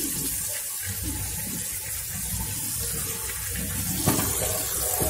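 Water running steadily from a kitchen tap into a steel sink while cut raw mango pieces are rinsed, with a light knock about four seconds in.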